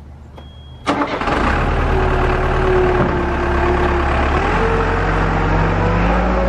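Diesel engine of a New Holland LB75B backhoe loader starting up: a short high beep, then the engine catches suddenly about a second in and runs steadily for the rest.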